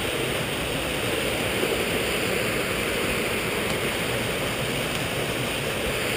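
Small rocky woodland stream cascading down a slope: a steady rush of falling water.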